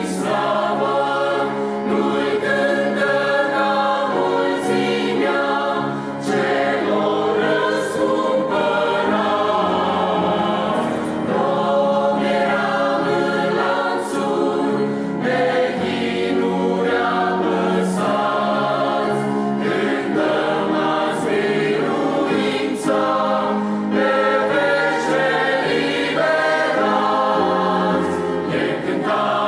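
Mixed choir of men's and women's voices singing a hymn in Romanian, continuously and in full harmony.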